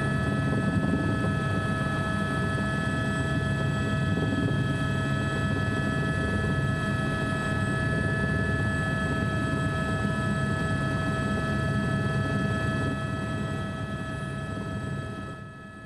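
A steady low engine rumble with several steady high tones running above it, fading out over the last few seconds.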